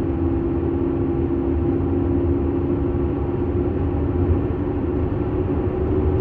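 Car cabin at highway speed: steady road and tyre rumble with a droning hum on top that rises slightly in pitch as the car speeds up from about 50 to 60 mph. This hum is the unwanted driving noise being demonstrated.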